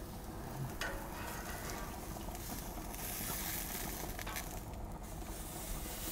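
Beef hip steak sizzling on the hot grate of a gas grill, with two faint clicks, about one second in and near the middle, as the steak is turned.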